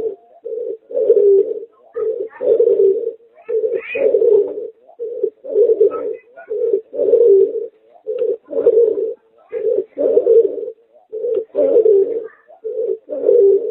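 Pigeon–dove hybrid (merpater, a domestic pigeon crossed with a puter dove) cooing: a steady run of low coos, each a short note followed by a longer one, repeating about every one and a half seconds.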